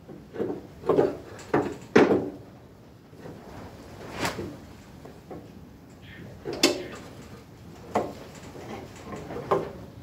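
Irregular metal clunks and scrapes of hand tools working bolts and fittings on a Cub Cadet tractor's rear three-point hitch mounting: about four quick clunks in the first two seconds, then single ones every second or two.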